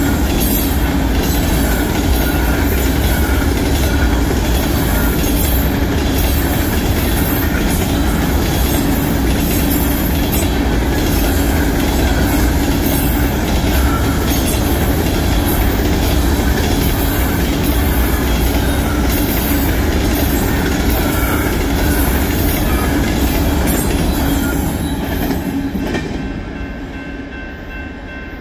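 BNSF freight train of covered grain hopper cars passing close by, with a steady rumble and wheel clatter on the rails. The sound drops away about 25 seconds in as the last car goes by.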